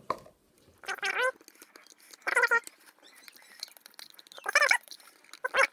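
An animal calling: four short, pitched cries that waver in pitch, about one to two seconds apart.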